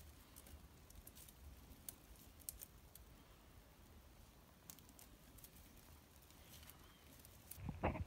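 Faint, scattered light ticks and rustles of dry hay as doves shift about on a straw nest, growing louder near the end.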